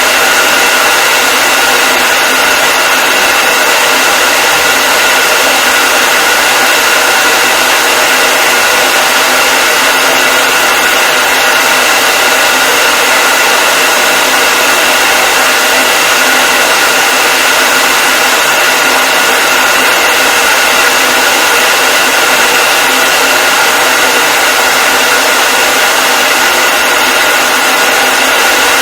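Hair dryer running steadily: a constant rush of air with a steady high whine from its fan motor, and little low rumble.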